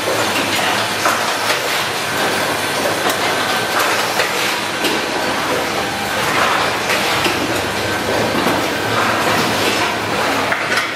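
Automatic switch assembly machines running: a steady, dense clatter of many rapid clicks and knocks from their mechanisms over a low hum.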